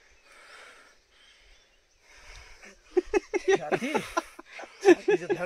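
Quiet, breathy panting of a hiker winded from a steep climb, then, about three seconds in, loud men's voices laughing.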